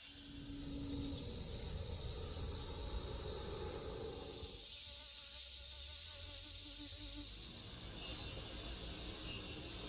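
Steady high-pitched insect chirring outdoors, over a low rumble.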